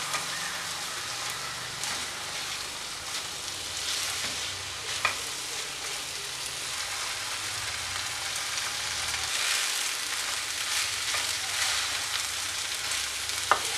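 Cooked biryani rice being stirred into hot tomato masala in a non-stick pan with a wooden spatula: a steady sizzle with the scrape of the spatula. A sharp knock about five seconds in and another near the end.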